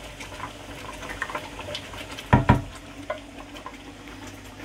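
Thick coconut milk being scraped out of a tin with a wooden spoon into a wok of curry: soft wet scraping and plopping, with two sharp knocks close together about halfway through.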